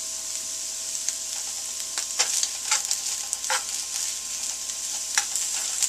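Venison pieces sizzling as they fry in a nonstick skillet, a steady hiss, with a metal utensil clicking and scraping against the pan several times as the meat is turned.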